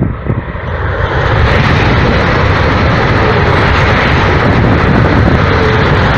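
Renfe AVE Talgo 350 high-speed train passing at speed: a loud rushing roar that swells over the first second or so, then holds steady.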